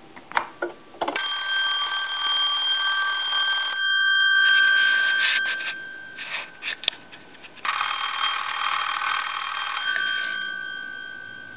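Twin-gong electromechanical ringer of a PTT telephone ringing twice, each ring about two and a half seconds long, the gongs' tones hanging on and fading after the clapper stops. A few sharp clicks come just before each ring.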